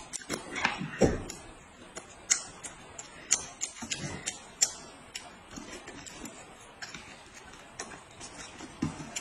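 Eating sounds at a table: irregular small clicks and taps of chopsticks and tableware, with a heavier knock about a second in and a few short sips and mouth sounds.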